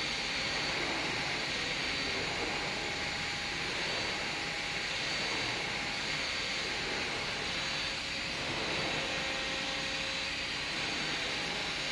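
Steady machinery noise from a concrete railway-sleeper production line: a constant, even hiss with faint steady hum tones, holding at one level throughout.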